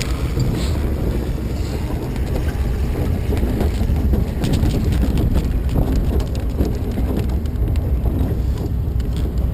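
Race boat engine running steadily with a low rumble, with wind buffeting the microphone.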